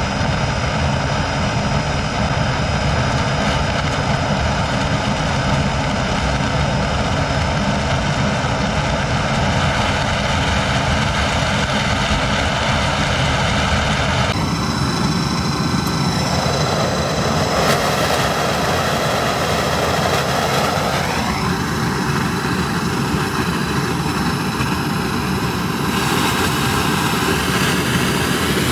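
Large leaf-blower-fed rocket casting burner firing steadily, a continuous rush of burning fuel and forced air, running without its oxygen lances. About halfway through the sound changes as the flame shortens, and for several seconds a pitch sweeps down and then back up before the burner settles into a steady run again.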